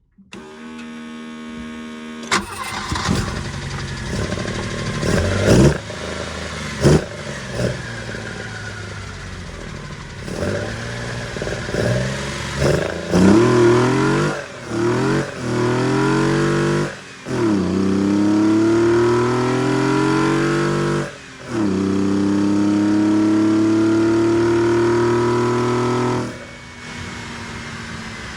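BMW M20B20 2.0-litre inline-six on Weber DCOE 40 sidedraught carburettors, cranked and catching a couple of seconds in, then blipped repeatedly with rising and falling revs, held twice at a steady higher speed for several seconds, and let drop back to idle near the end. The carburettors are not yet set up and the engine runs rich.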